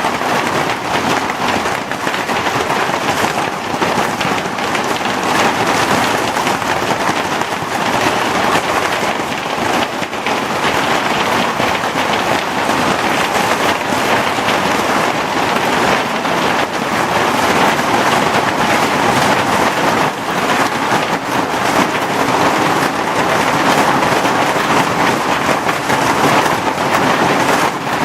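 Heavy hail falling: a loud, steady, dense clatter of hailstones striking surfaces.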